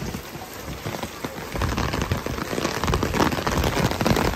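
Torrential rain, with heavy drops hitting the umbrella overhead as a dense crackle of small taps over the hiss of rain on the road. It gets louder about a second and a half in.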